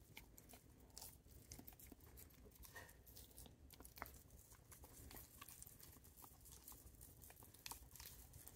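A dog gnawing and licking meat off a cooked pork baby back rib held in someone's hands: faint, irregular clicks of chewing and licking.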